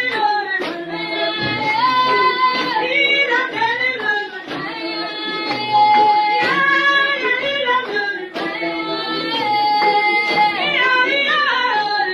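A song sung by high voices, with long held notes that slide from one pitch to the next.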